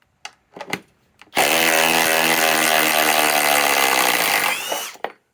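Harbor Freight Hercules cordless impact tool on an 8 amp battery, hammering steadily for about three seconds, then winding down in pitch as the trigger is let go. A couple of light clicks come before it.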